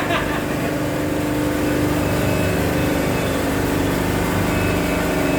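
Horizontal cardboard baling press running with a steady mechanical hum of constant pitch.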